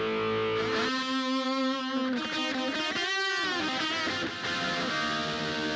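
Background electric guitar music, held notes with one note bent up and back down about halfway through.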